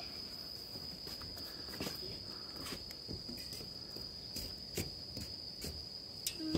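A steady high-pitched insect trill with irregular footsteps and light clicks scattered through it.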